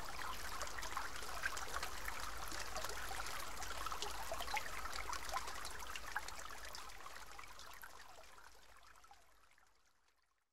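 Running water trickling and splashing in a steady stream, with many small splashy ticks, fading away over the last four seconds.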